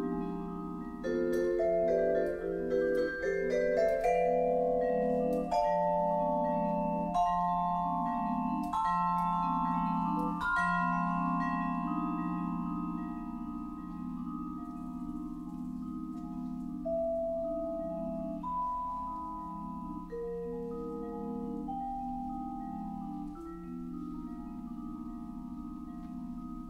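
Solo vibraphone played with mallets: long ringing notes, a slow melody over sustained low chords. It grows softer over the second half.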